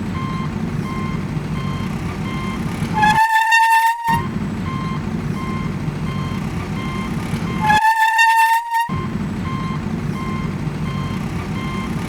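Heavy truck sound: a steady engine rumble with reversing-alarm beeps, cut twice by a loud horn blast of about a second, each with a slightly rising pitch.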